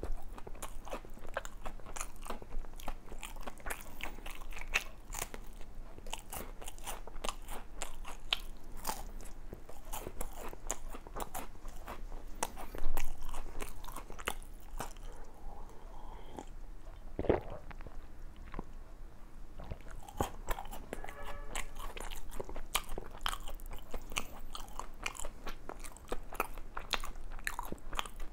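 Close-miked biting and chewing of a crunchy chocolate doughnut topped with a chocolate wafer bar: dense, crisp crunches. One louder knock about halfway through, then the crunching eases off for a few seconds before picking up again.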